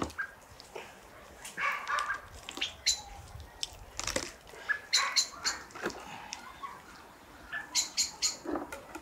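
Short bird chirps and calls scattered throughout, with a few knocks and scrapes as raw beef hooves are handled on a wooden table.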